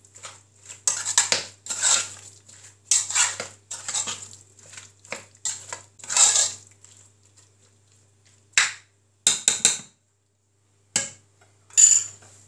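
Raw meat being mixed by hand with its marinade of grated tomato, onion, garlic, spices and oil in a metal pot: wet squelching and scraping against the pot in repeated strokes about once a second. Near the end come a few short sharp clicks and knocks.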